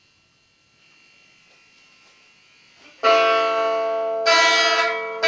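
Guitar chords: after about three seconds of faint background, a loud chord is struck and rings on, and a second chord follows about a second later, each slowly fading.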